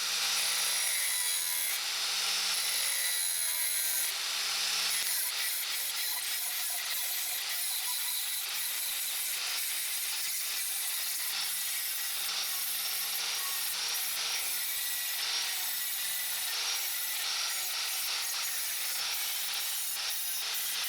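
Angle grinder cutting slots into a steel rebar fork blank to form the tines: a steady grinding hiss with a faint motor hum underneath.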